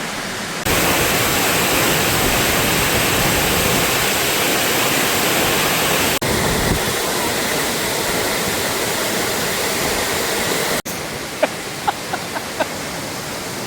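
A waterfall's steady rush of falling water. It grows louder about half a second in and cuts out for an instant twice. A few short, high chirps come near the end.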